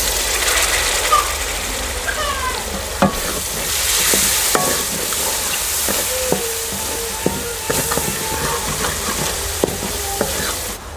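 Tomato-onion masala frying and sizzling in a metal karahi while a wooden spoon stirs it, with frequent clicks and scrapes of the spoon against the pan. This is the masala being fried down (bhuna) after a little water was added. The sizzling cuts off suddenly near the end.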